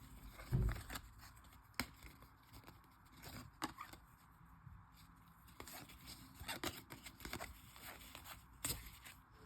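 Thick trading cards being handled and slid against one another: faint scrapes with a few light clicks, and a soft thump about half a second in.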